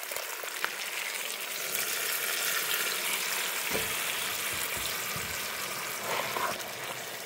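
Freshly ground tomato-and-chile sauce sizzling steadily in a hot cazuela of frying meat.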